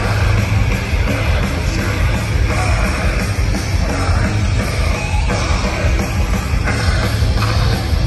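Metalcore band playing live: loud distorted electric guitars, bass and drums through a PA, with a shouted vocal over them.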